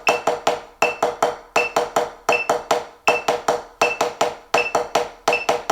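Drumsticks striking a rubber practice pad in even single strokes with one hand, played as sixteenth notes. A metronome beeps on each beat at 80 beats per minute.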